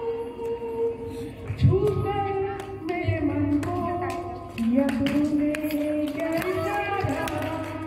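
A woman singing solo into a microphone through a PA system, holding long notes that step from one pitch to the next.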